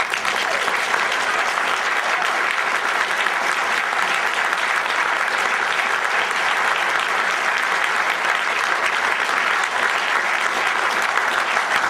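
Audience applauding: dense, steady clapping that starts abruptly and holds at an even level throughout.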